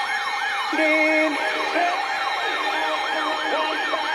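Electronic yelp siren, its pitch sweeping up and down about three times a second, with a brief lower steady tone about a second in.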